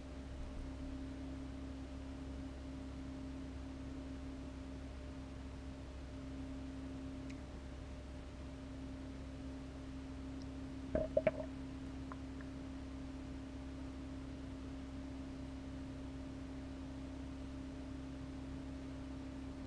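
Steady low electrical hum from a reef aquarium's running equipment. A few brief clicks come about eleven seconds in.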